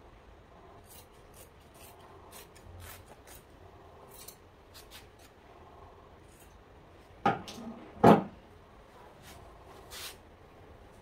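Light crisp snips and rustles of fabric being worked, then two loud sharp clacks of a staple gun firing about a second apart, and a fainter clack near the end.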